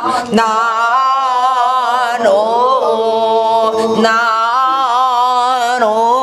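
Gueum, the wordless vocables of Korean folk singing: a woman's voice singing long held notes on open syllables like "na", with a wide wavering vibrato. It comes in several phrases with short breaks between them, with a rising slide a little over two seconds in.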